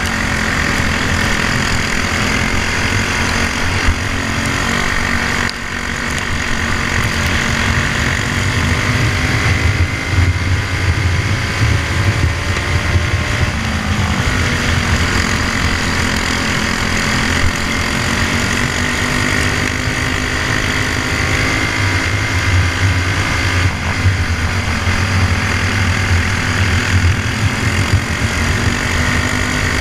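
Briggs & Stratton Animal single-cylinder four-stroke kart engine running at race speed, heard onboard. Its pitch sags and climbs back several times as the kart slows for corners and accelerates out of them.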